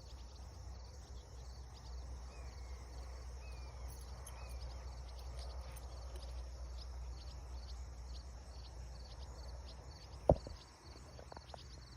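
Insects chirping in a steady, evenly repeated high pulse over a low rumble, with three short falling calls between about two and four seconds in. A single sharp knock about ten seconds in is the loudest sound.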